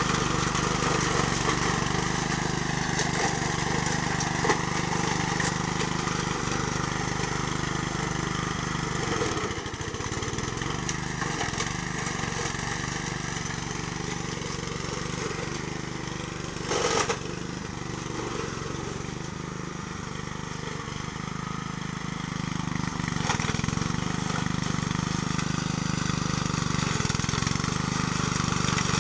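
Honda self-propelled walk-behind lawn mower's four-stroke engine running steadily, with one short knock about two-thirds of the way through.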